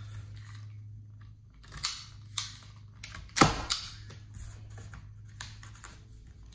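Plastic packing straps on a cardboard-wrapped package being cut with a utility knife: several sharp snaps and clicks, the loudest about three and a half seconds in, with light rustling of cardboard between them.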